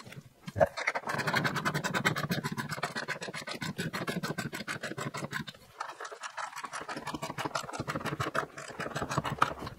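Socket ratchet clicking rapidly as it tightens a seat-belt mounting bolt into the roll cage. It runs in two stretches with a short pause near the middle.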